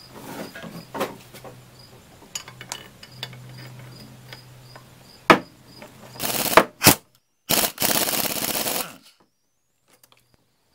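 Air ratchet driving a pulley puller's forcing screw to press a power steering pump pulley off its shaft: light metallic clicks and taps, a sharp knock about five seconds in, then two bursts of rapid rattling, the second about a second and a half long, each cutting off suddenly.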